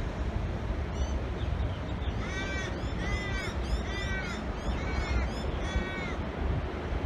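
A crow cawing five times, the caws a little under a second apart, over a steady low wind rumble on the microphone.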